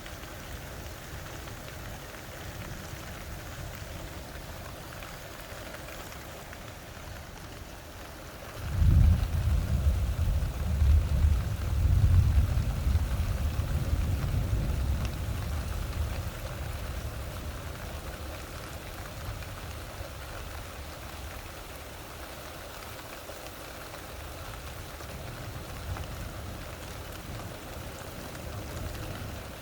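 Steady rain falling, with a roll of thunder breaking in suddenly about nine seconds in, rumbling low for several seconds and slowly fading away.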